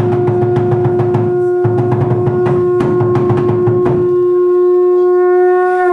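Conch shell trumpet blown in one long, steady note over rapid percussion beats; the percussion stops about four seconds in, leaving the conch alone until it cuts off at the end.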